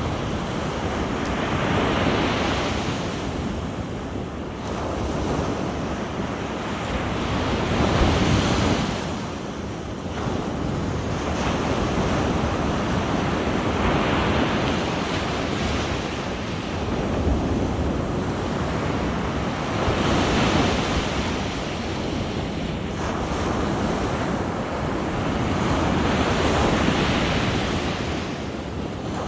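Sea waves breaking on the shore, a rushing surf that swells and recedes about every six seconds.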